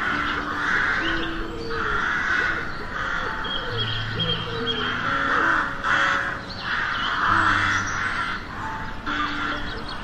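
A flock of crows cawing over and over, harsh calls overlapping one another with hardly a break, over soft background music with long held notes.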